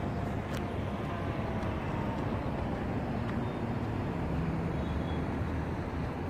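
Steady rumble of road traffic, with a faint engine hum underneath.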